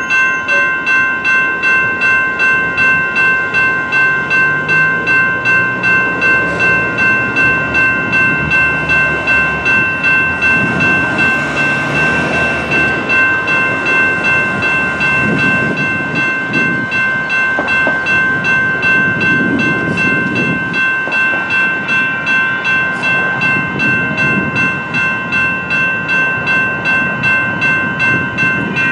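Electronic railroad crossing bells ringing steadily at about two strikes a second while the crossing is activated. A rushing noise rises and falls partway through.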